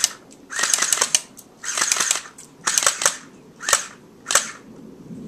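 CYMA MP5 electric airsoft gun (AEG) firing on full auto in about five bursts of rapid shots. The first burst is the longest, the last two are brief, and the shooting stops a little over four seconds in.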